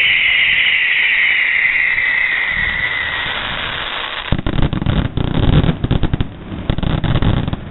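A loud hiss falling in pitch, then about a second later a rapid string of firecracker bangs crackling for about three seconds.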